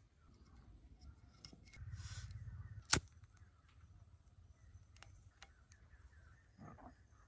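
A pocket lighter struck once with a sharp click about three seconds in, just after a brief rustle of handling; faint handling clicks and rustles follow.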